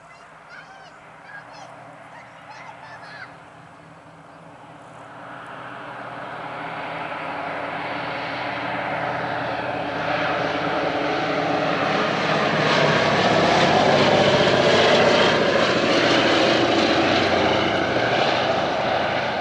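Boeing B-17 Flying Fortress's four Wright Cyclone radial engines droning as it flies past. The drone swells from about four seconds in, is loudest as the bomber passes close overhead near the end, and eases off slightly at the very end.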